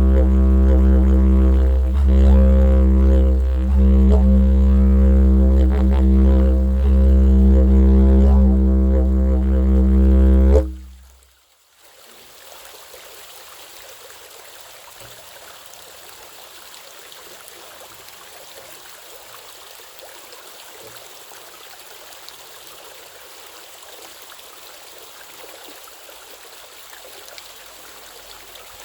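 Didgeridoo drone with shifting overtones on a low, steady note, breaking off abruptly about eleven seconds in. After a moment's gap, a waterfall's steady rush takes over, much quieter.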